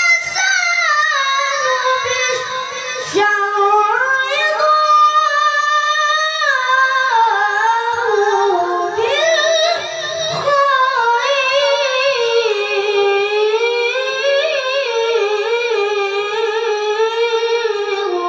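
A high, unaccompanied solo voice reciting the Quran in melodic tilawah, drawing out long ornamented notes that bend up and down, with short breaks for breath about three and ten seconds in.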